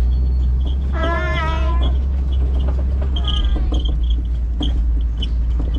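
Safari truck engine running with a low steady rumble. About a second in, a high wavering cry lasts about a second, and short high chirps come and go.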